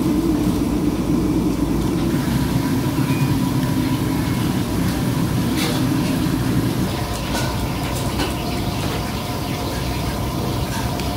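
Steady low rumble of background machinery noise, with a few short crisp crunches in the middle as a knife cuts through a crispy fried egg-and-onion fritter on a metal tray.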